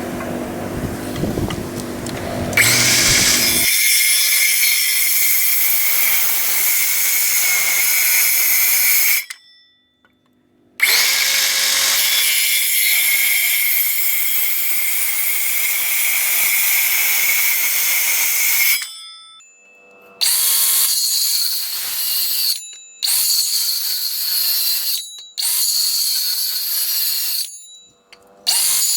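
Power drill running in long, steady runs, working into 2x4 lumber. It stops and restarts: two runs of about seven seconds each, then several shorter runs at a higher pitch. A lower-pitched motor hum is heard for the first couple of seconds.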